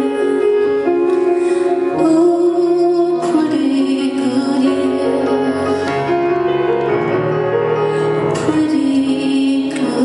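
Live grand piano and string accompaniment playing a slow instrumental passage of the song, sustained chords changing every second or so.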